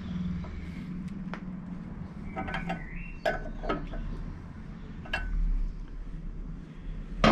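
Ring spanner clinking against a metal oil-pipe union nut as the union is worked loose: a handful of separate sharp metallic clicks, each ringing briefly.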